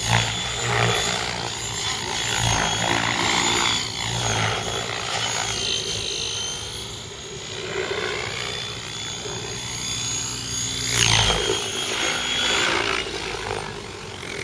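Align T-Rex 700E electric RC helicopter flying aerobatics: a high motor and gear whine over rotor-blade noise that surges and fades as it manoeuvres. The loudest surge, with a sweep in pitch, comes about eleven seconds in.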